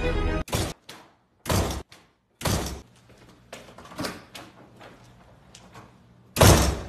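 A door banging shut several times, separate sudden bangs spaced a second or so apart, the loudest about six and a half seconds in.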